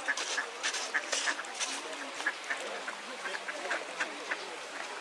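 A flock of mallards quacking, many short quacks a second overlapping one another.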